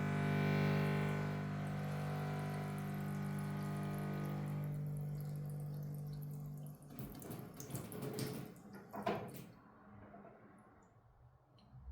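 Running water faucet giving off a low, steady buzzing hum, a pitched drone over the hiss of the water. The hum cuts off about seven seconds in, leaving a few faint clicks and splashes.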